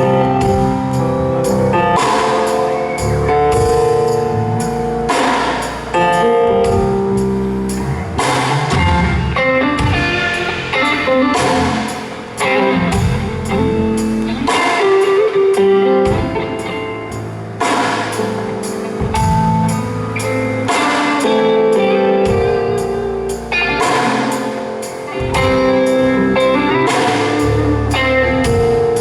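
Live band jamming: electric guitar over a drum kit and bass, with a bluesy feel and a steady beat.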